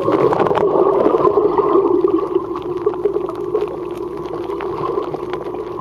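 Underwater pool sound as a swimmer dives head-first to the bottom: a short burst of splashing and bubbles at the start, then a continuous muffled drone with a wavering pitch that slowly fades.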